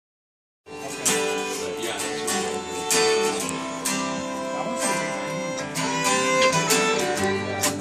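Acoustic string band playing: two strummed acoustic guitars and a fiddle, cutting in suddenly just under a second in.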